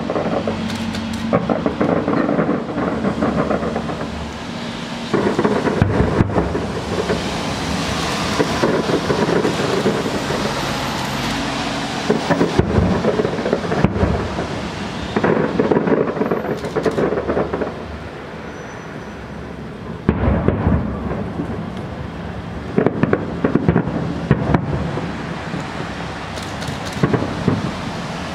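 Aerial fireworks shells bursting in a continuous run of bangs and crackling. The bangs come thickest in clusters, near the middle and again from about twenty seconds in.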